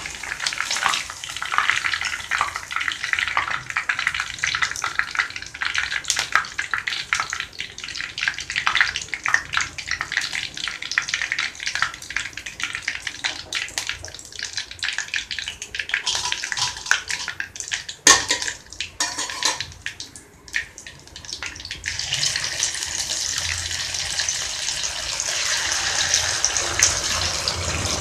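Chicken pieces deep-frying in hot oil in an iron kadai: a crackling sizzle while the cooked batch is lifted out with a wire-mesh skimmer. A few sharp knocks come around the middle, then a denser, brighter sizzle from a fresh batch of marinated chicken going into the oil near the end.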